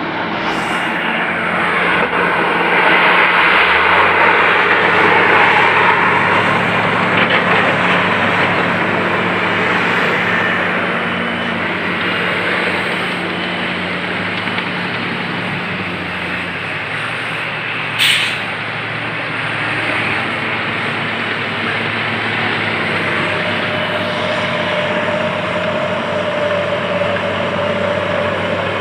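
Heavy diesel earthmoving machinery running and working under load: steady low engine drone with loud mechanical noise, swelling in the first few seconds. There is a short sharp sound about eighteen seconds in, and a steady whine from about twenty-three seconds on.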